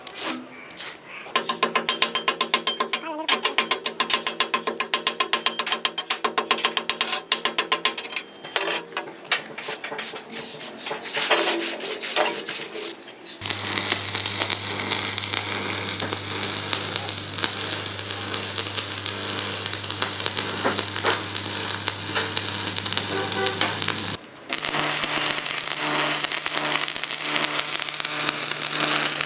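Metalworking on a steel loader bucket: a fast mechanical rattle for the first several seconds, then a steady low hum with hiss and crackle, changing in character about two-thirds of the way through.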